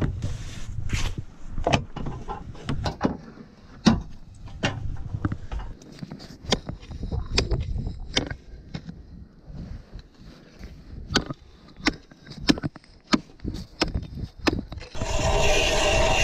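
Irregular knocks and crunches on ice, then about fifteen seconds in a steady motor drone with a whine starts up: a power ice auger beginning to drill.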